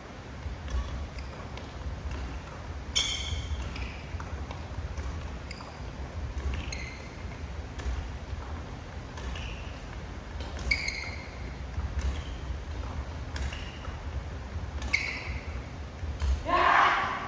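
Badminton rackets striking shuttlecocks in a rapid feeding drill, sharp clicks one after another. High squeaks at intervals, with a louder, longer noisy sound near the end.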